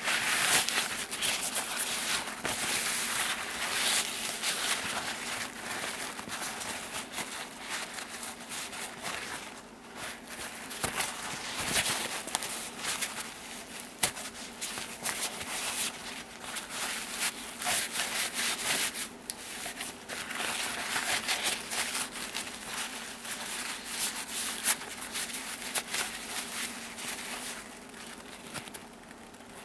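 Hand rubbing and scraping on air rifle parts during cleaning and greasing, in uneven strokes with brief lulls, over a faint steady hum.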